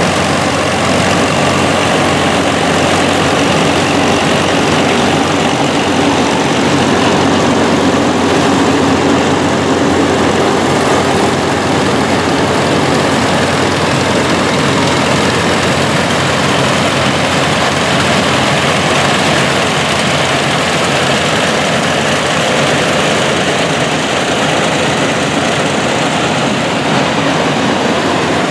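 Vintage farm tractors with mounted corn pickers harvesting standing corn: a steady engine drone under load mixed with the noise of the pickers working.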